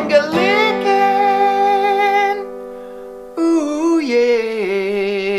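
Sung closing jingle: a voice holds long notes with vibrato in two phrases. The first phrase ends about two and a half seconds in, and the second starts about a second later.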